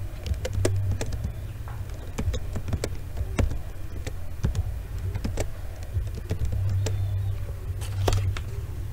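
Computer keyboard keys clicking in irregular keystrokes as a command is typed, with a louder keystroke about eight seconds in, over a steady low hum.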